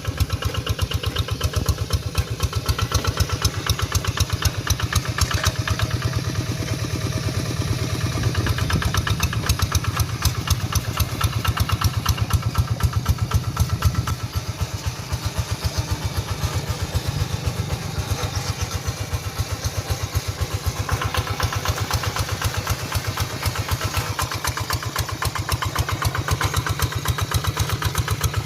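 Paddy-field tractor engine running steadily with a rapid, even firing beat while plowing; it eases off a little about halfway through and picks up again toward the end.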